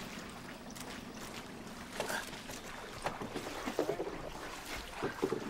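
A boat engine running steadily at a distance, with several brief higher sounds over it.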